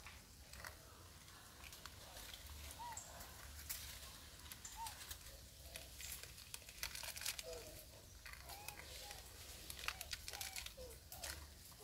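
Foil-lined instant-noodle packet crinkling in a macaque's hands, a faint irregular string of small crackles as she picks at it. A few faint short calls sound in the background in the second half.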